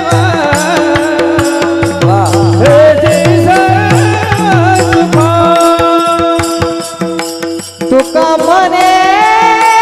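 Marathi devotional singing (an abhang) with a voice holding long, ornamented notes over a steady drone and a low drum beat. The drum drops out about halfway through, the music dips briefly near the end, and then the voice rises into a long held note.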